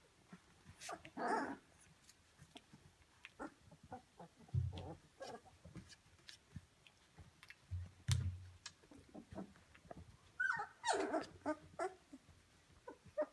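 A litter of Rhodesian Ridgeback puppies about 17 days old whimpering and grunting as they crawl over and mouth each other, with a short cry about a second in and a longer cry, rising at first, near the end. A couple of dull low thumps come in the middle.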